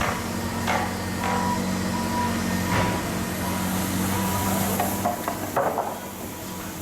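Shipyard machinery running with a steady low hum. A short, high-pitched beep sounds on and off, like a warning signal, in the first half or so. Scattered metallic knocks from the work are heard throughout.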